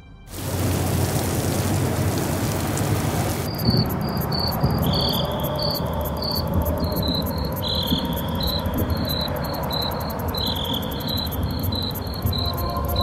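Crickets chirping at night: short high chirps repeating over a fast ticking trill, coming in about three and a half seconds in after a steady hiss, with a low rumble underneath.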